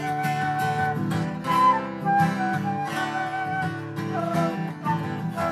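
Instrumental country song break: strummed and picked acoustic guitar carrying the tune, with a woodwind-like melody line.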